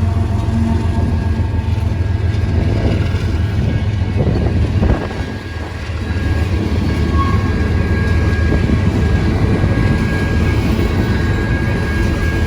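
BNSF freight grain train rolling past at close range: a loud, steady low rumble. About five seconds in, a thin high tone comes in and holds.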